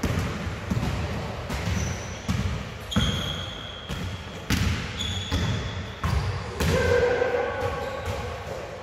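Basketball bouncing on a hard gym floor, a thud every half second to a second, mixed with short high squeaks.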